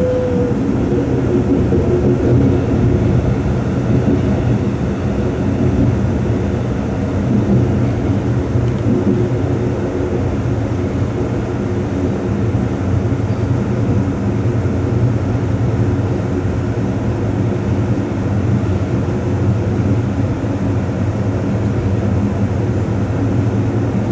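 Steady running noise of the Amtrak Coast Starlight passenger train rolling along the track, with a constant low hum, heard from the rear of the train as it runs through a tunnel.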